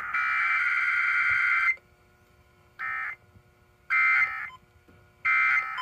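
Emergency Alert System SAME data tones from a radio broadcast test: one long burst that stops about 1.7 s in, then three short bursts about a second apart.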